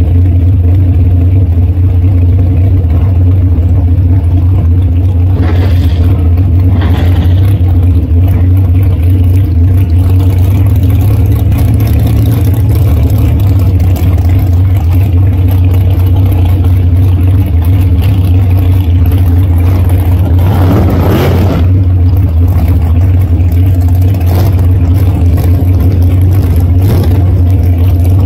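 Dragster's engine idling steadily and loud, heard from a camera mounted on the car. About 21 seconds in, a brief sound rises and falls in pitch above the idle.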